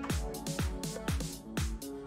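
Background electronic music with a steady beat: a deep drum hit about twice a second over held synth tones.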